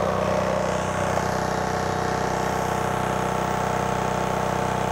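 Makita 40V XGT AC001GZ brushless 2-gallon Quiet Series air compressor running steadily with an even, low-pitched hum as it recovers, refilling its tank after nailing.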